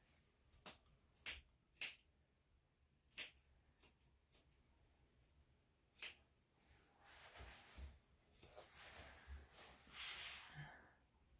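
Steel grooming scissors snipping the fur around a dog's paw: a string of short, sharp metallic snips at uneven intervals, with a faint rustling in the second half.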